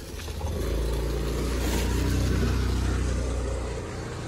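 A motor vehicle engine running, starting about half a second in, growing louder to a peak around two seconds in, then easing off.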